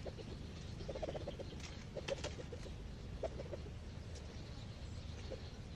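Short runs of low clucking calls, about four of them in the first half, with a few faint ticks.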